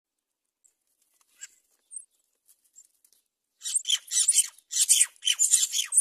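Myna nestlings give a few faint high chirps, then about three and a half seconds in break into loud, harsh, hissy begging calls repeated several times a second as the parent myna arrives at the nest with food.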